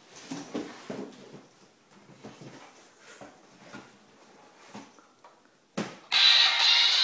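Soft scattered knocks and rustles from a child's cardboard box costume as the child moves. Near the end, after a sharp click, a loud electronic sound of many steady tones starts abruptly.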